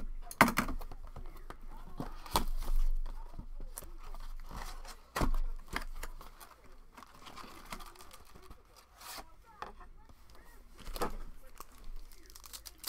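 Cardboard blaster box of trading cards being torn open and its foil-wrapped card packs handled: tearing and crinkling with several sharp knocks and clicks.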